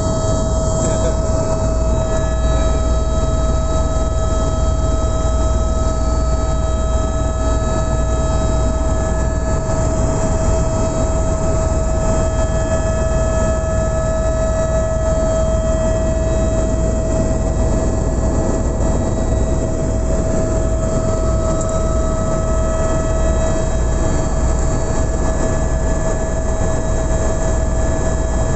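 Helicopter in flight, heard inside the cabin: a loud, steady drone of engine and rotor with a constant whine running through it.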